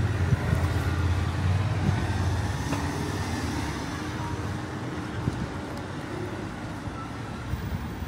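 Street traffic: a motor vehicle's engine running close by and fading steadily as it moves away, over general road noise.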